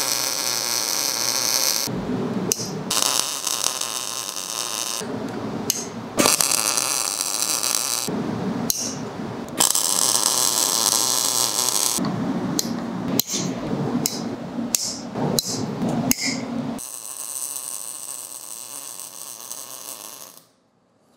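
MIG welder arc crackling and sizzling as it lays tacks and short beads on steel tubing, starting and stopping in a series of bursts with short breaks, and fading away near the end.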